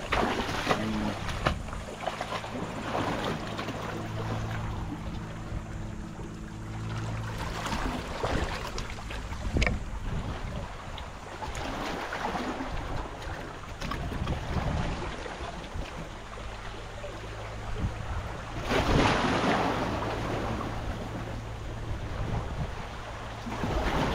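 Small boat's engine running steadily under wind on the microphone and the wash of waves, with a louder rush of wind and water about nineteen seconds in.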